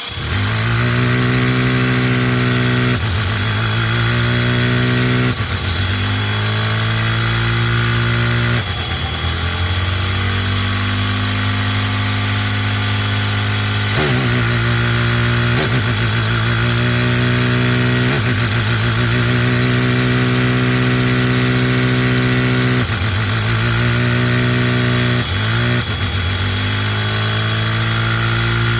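Lego single-cylinder vacuum engine running fast, a steady high hum that dips and climbs again every few seconds as the four-speed Lenco transmission it drives is shifted, revving up on the downshifts. Underneath runs the steady hiss of the vacuum cleaner suction that powers it.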